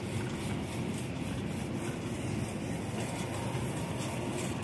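Steady rumbling background noise of a busy supermarket, with a faint regular rattle.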